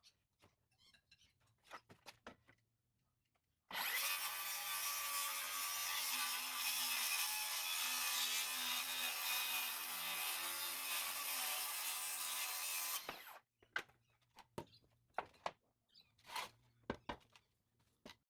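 A power tool running steadily on wood for about nine seconds and then stopping, followed by a scatter of light knocks and clicks.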